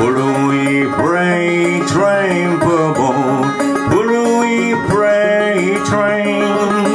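Banjo fingerpicked in a folk tune, a run of plucked notes with some sliding pitches.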